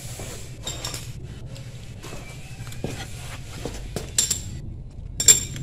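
Steel spanner clinking against a motorcycle engine being taken apart: scattered sharp metallic clinks, with a louder pair of strikes near the end.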